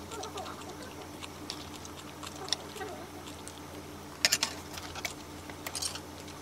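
Metal utensils clinking and tapping on stainless steel bowls while eating, with a sharp cluster of clinks about four seconds in and another near six seconds, over a steady low hum.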